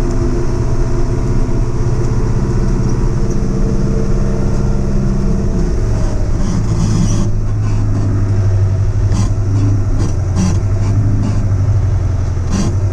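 A heavy machine's diesel engine running steadily under load. Its note drops to a lower, steady pitch about six seconds in, with several short clanks and rattles after that.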